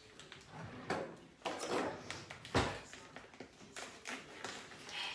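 Handling noises at a kitchen counter: a plastic bag holding a marinated pork roast rustling, with scattered light knocks and one heavier thump about two and a half seconds in.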